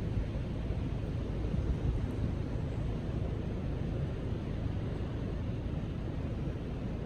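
Strong gusty wind blowing, with a steady low rumble of wind on the microphone.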